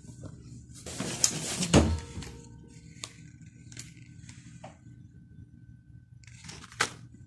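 Snack packaging handled on a pile: crinkly plastic wrappers and cardboard boxes rustle and click for about a second, ending in a dull thud, then a few scattered light taps and clicks.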